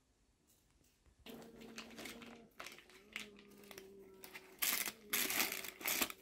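Baking paper crinkling and rustling as hands press it into a round metal baking pan, growing loud from about four and a half seconds in. A steady hum runs underneath from about a second in.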